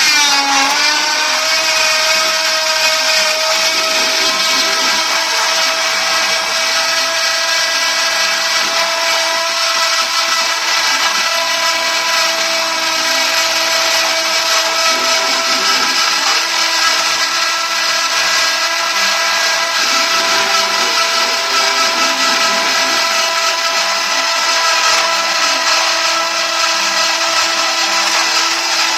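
CNC router spindle running at a steady high whine as it cuts. Its pitch drops and settles in the first second.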